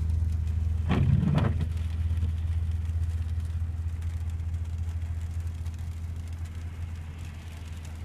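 A vehicle engine running steadily with a low hum. About a second in comes a short double call or squawk, two quick strokes close together.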